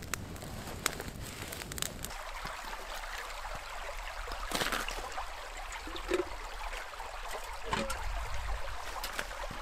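A campfire crackles with a few sharp pops, then a shallow stream runs and gurgles over rocks between icy banks. Near the end a metal pot is dipped into the water.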